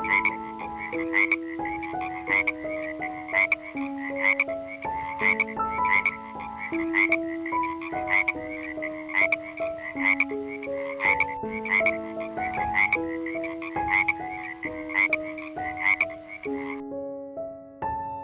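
A frog croaking in a fast, steady series of calls over soft piano music; the croaking stops near the end.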